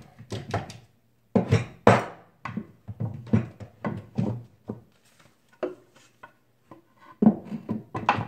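Wooden light rail trim and a nail gun knocking and tapping against a wall cabinet while the trim is fitted into place: a run of irregular clicks and knocks, a few louder ones about a second and a half in.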